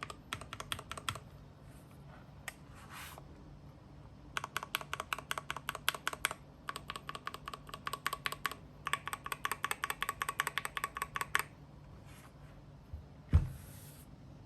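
Mechanical keyboard fitted with lubed Gateron Yellow linear switches being typed on in several bursts of fast keystrokes with short pauses between them. Near the end there is a single louder thump.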